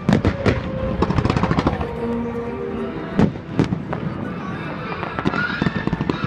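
Fireworks bursting: a run of sharp bangs, loudest at the start and twice around three seconds in, with dense crackling between them.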